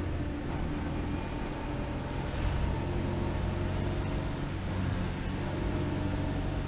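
1989 Mitsubishi Pajero driving steadily along firm beach sand: a constant engine drone with an even hiss of tyre and wind noise.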